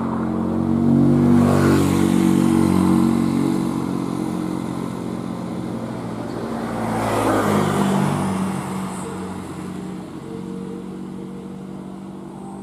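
Road vehicle engines running, with two louder swells of passing traffic about two seconds in and again around seven seconds, then fading away.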